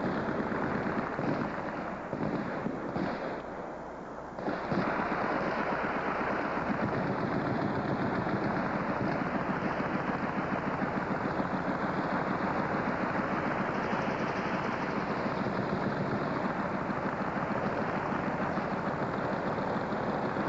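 Sustained machine-gun fire, a continuous dense rattle of automatic shots. It slackens for a couple of seconds about three to four seconds in, then comes back at full strength and keeps going without a break.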